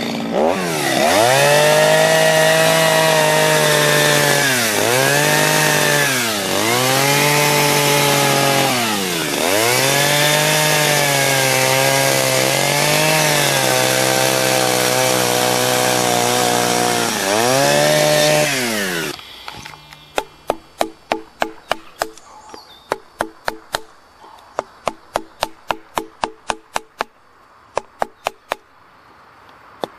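Two-stroke chainsaw running at high revs while carving wood, its pitch dipping briefly several times as the throttle eases, then shutting off about two-thirds of the way through. A run of sharp knocks in quick clusters follows.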